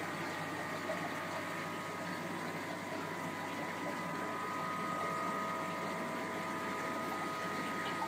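Aquarium pump and circulating water: a steady hum over an even wash of water noise.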